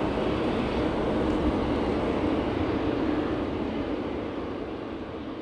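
Boeing 747-8F's four GEnx-2B67 turbofan engines running after landing, a steady jet rumble that slowly fades.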